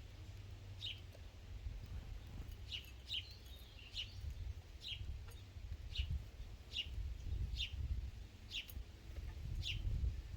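A small songbird giving short, high chirps, each sweeping downward, about ten of them at irregular intervals, sometimes two close together. A low rumble runs underneath.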